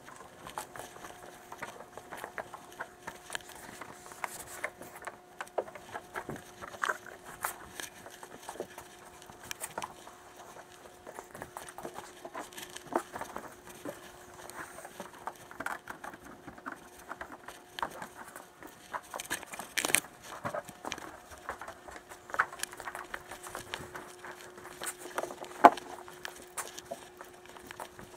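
Hand wiping of a car body with a towel: scattered small taps, rubs and clicks of hand and towel on paint and trim, with a couple of louder knocks, over a faint steady hum.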